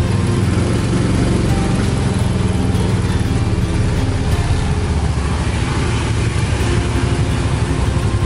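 Tuk tuk's small engine running steadily, heard from the passenger seat, mixed with the engines of scooters and cars close around it in slow traffic.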